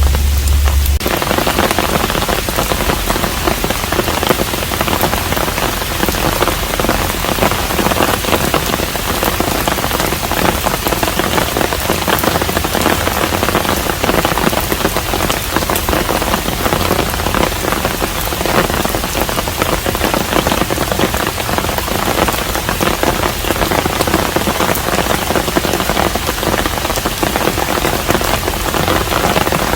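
Steady rain falling on and around a hanok, a traditional Korean house, with many close individual drops ticking through the constant patter. A low hum drops out about a second in.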